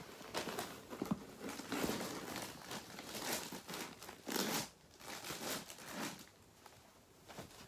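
Plastic packaging crinkling and rustling as an item is handled and pulled out of it, stopping about six seconds in.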